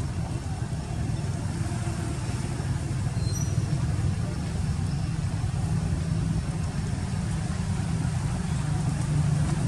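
A steady low rumble, with a few faint short high chirps about three seconds in.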